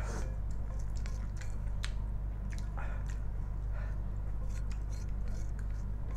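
Chewing of Samyang spicy instant noodles: wet, squishy mouth sounds with scattered short smacks and clicks, over a steady low hum.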